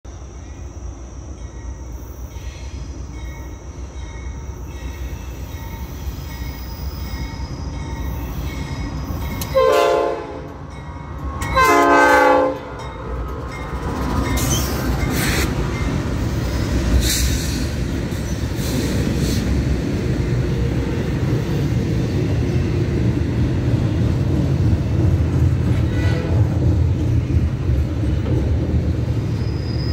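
Norfolk Southern freight train approaching with a low rumble that slowly builds. It sounds its air horn in two short blasts about ten seconds in. Then its diesel locomotives pass close by, followed by the steady rumble of double-stack container cars rolling over the rails.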